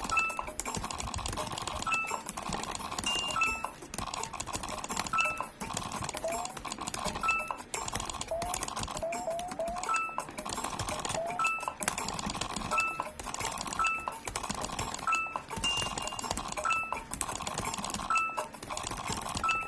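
Computer keyboard typed hunt-and-peck with the index fingers: a rapid, uneven run of key clicks. Short beeps recur every second or two, with small rising chirps between them.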